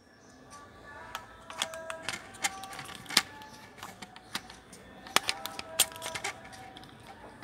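Irregular sharp plastic clicks and snaps from an Acer Aspire E5-771G laptop's bottom case being handled and opened, its screws already out. The loudest clicks come about three seconds in and again around five to six seconds.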